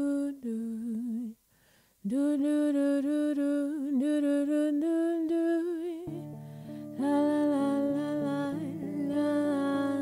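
Music: a woman humming a wordless melody on "doo", breaking off briefly about a second and a half in. About six seconds in, a plucked guitar accompaniment comes in beneath her voice.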